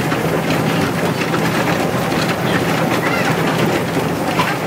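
Railcar running along the track, heard from inside the cabin: a steady, even running noise with a low hum underneath.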